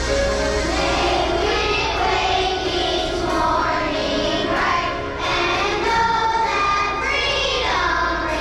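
A group of children singing a song together over musical accompaniment, with long held notes.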